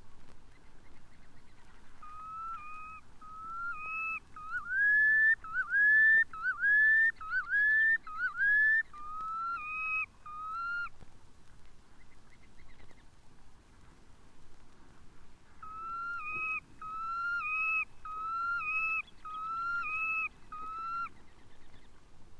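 Red knot calling: two series of whistled notes, each note ending with an upward lilt, repeated about once a second. The first series grows louder and a little higher in its middle, and a second series follows after a short pause.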